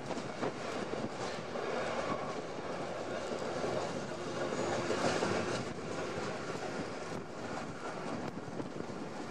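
Rorschach–Heiden standard-gauge cogwheel train running along the line, heard from on board: a steady running noise of wheels on the rails, with a few faint clicks.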